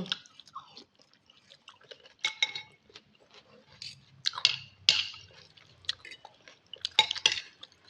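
Close-miked eating of chicken-broth instant noodle soup: wet slurping and mouth sounds in short bursts, the loudest about 4.5 to 5 seconds and about 7 seconds in, with light clinks of a utensil against the bowl.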